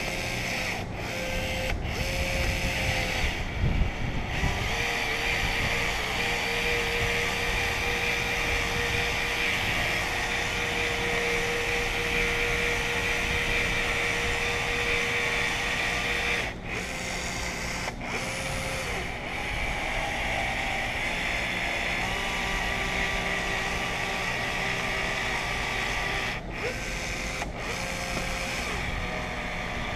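Electric caulking gun's motor whirring steadily as it pushes out a bead of urethane windshield adhesive, stopping and restarting briefly a few times.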